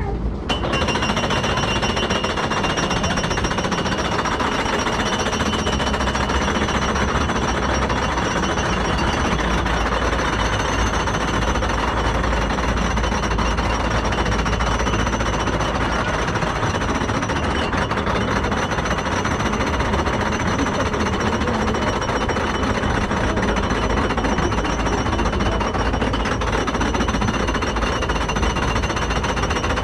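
Chain lift of a wooden side-friction scenic railway hauling the train up the lift hill: a steady, rapid mechanical clatter that starts abruptly just after the beginning.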